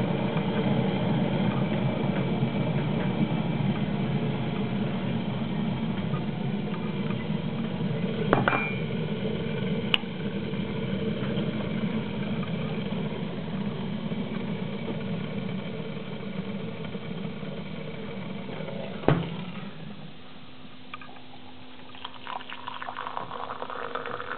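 Electric kettle heating up with a steady rumbling hiss, then switching off with a sharp click about nineteen seconds in. Near the end, water is poured into a cup, rising in pitch as the cup fills.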